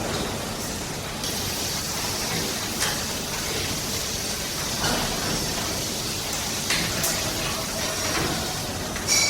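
Slaughterhouse ambience: a steady hiss of running water and machinery, broken every second or two by sharp knocks and clanks. The loudest is a ringing metallic clank near the end.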